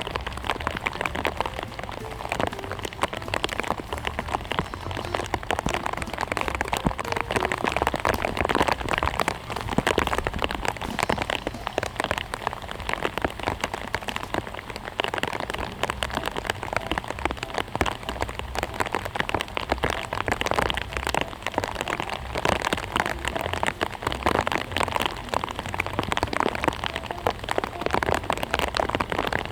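Steady patter of rain, a dense crackle of many small drops.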